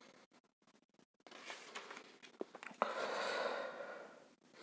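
A pause in speech: near silence for the first second or so, then a few faint clicks and a soft hiss lasting about a second, about three seconds in.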